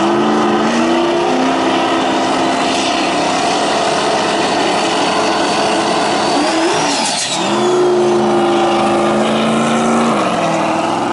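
Drag-race Mustang engines running at high revs with a loud, steady exhaust note. About seven seconds in, a thin whine rises and then glides down, and near the end the engine note drops.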